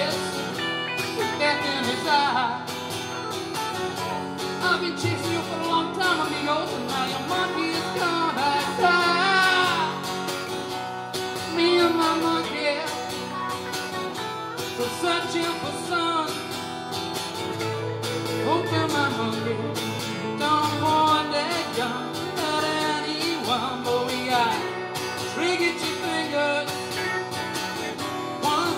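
Live music from an acoustic guitar and an electric guitar playing together, the electric guitar carrying a melodic lead line over the acoustic accompaniment.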